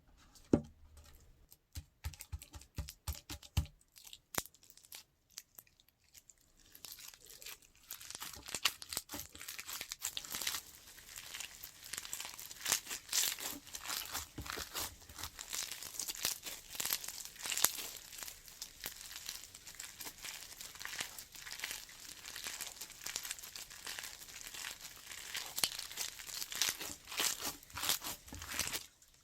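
Hands squishing and stretching slime, with crackly popping and crinkling. A few separate clicks come in the first seconds, then dense crackling from about seven seconds in.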